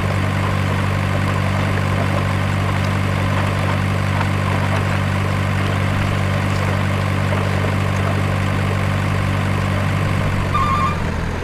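Heavy truck engine idling steadily, a low even drone. Near the end the drone drops away and a reversing beeper starts up.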